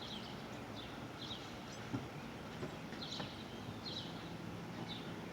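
Small birds chirping: short, high, falling chirps repeating a couple of times a second over steady outdoor background noise, with a single brief knock about two seconds in.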